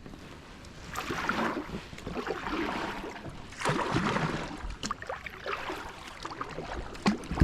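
Kayak paddling: swishing paddle strokes in the water, two strong ones a couple of seconds apart, then a few sharp knocks near the end.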